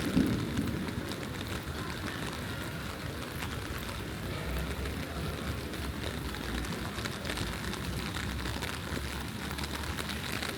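Steady rain falling and pattering on surfaces, an even hiss with a low rumble underneath. A brief thump sounds right at the start.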